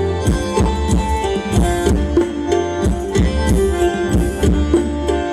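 Live Thai ramwong dance music from a band: a quick, steady beat of drum strokes that each drop sharply in pitch, over a strong bass and held melody notes.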